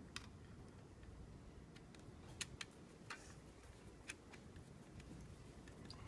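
Faint, sharp clicks of a screwdriver and wire against a three-way switch's terminal screw as a ground wire is hooked on and tightened, about five ticks with the loudest pair near the middle, over faint room hum.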